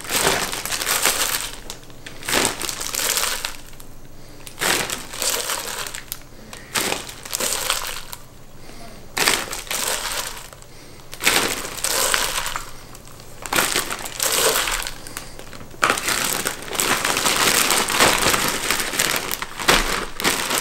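Plastic zip-top bag and disposable plastic glove crinkling in repeated bursts as handfuls of chopped green onions are scooped from a stainless steel bowl into the bag, with a longer run of crinkling near the end.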